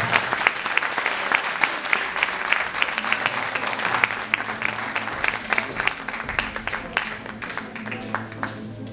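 Audience applauding, the clapping thinning out toward the end as instruments begin to play.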